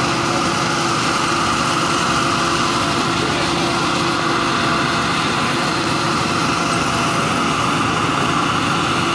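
Fire apparatus engines running at idle in a steady, unbroken drone with a constant hum.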